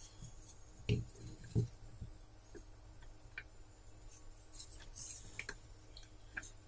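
Faint handling noise of multimeter test leads being picked up and their probe tips pushed into a mains tester's terminals: two soft thumps about a second in, then scattered light clicks and ticks.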